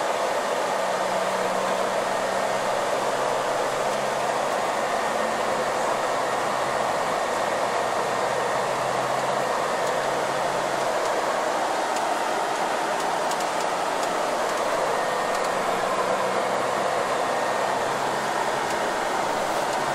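Steady rushing cabin noise of a coach bus driving at freeway speed, heard from inside: road and wind noise with a low engine hum that comes and goes underneath.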